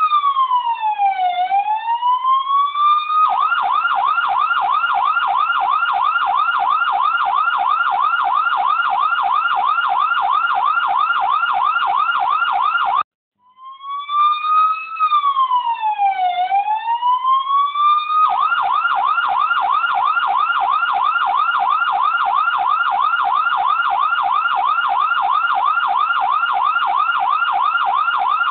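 Electronic siren: a wail that dips in pitch and rises again, then a fast, even yelp. It cuts off suddenly about 13 seconds in, then starts over with the same wail before going back into the fast yelp.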